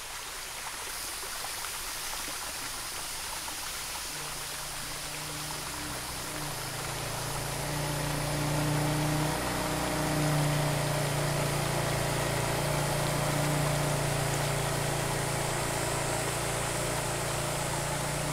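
A steady rushing hiss like running water, with a low sustained drone coming in about four seconds in and thickening with more held tones.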